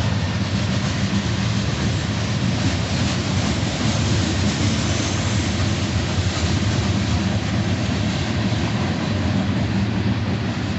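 Freight train passing: a steady low diesel drone under an even rush of wheel and rail noise.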